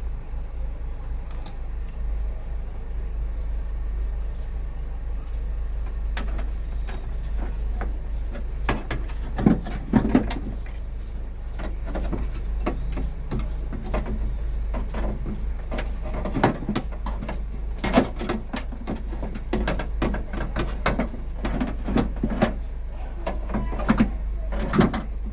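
Scattered clicks and knocks of hands and tools working on a car door's panel and window parts, coming in small clusters, over a steady low hum.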